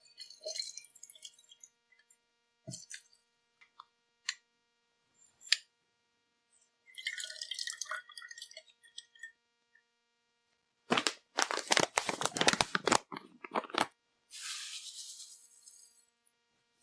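Lime halves squeezed in a hand-held citrus press over a metal cocktail shaker: wet squelches and drips, with single sharp clicks of the press. About 11 seconds in comes a loud crinkling of a plastic pouch for about three seconds, then granulated sugar hissing as it pours into the shaker.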